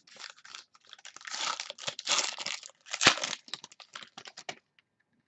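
Crinkly plastic wrapping crumpled and rustled by hand, loudest in the middle, with one sharp crackle about three seconds in.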